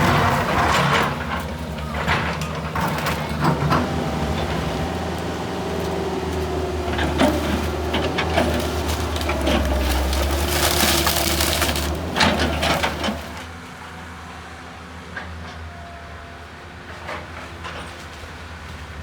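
A wooden house being torn down by a heavy machine: timber cracking, crushing and crashing, over the steady hum of the machine's engine. The crashing stops about two-thirds of the way through, leaving the engine running more quietly.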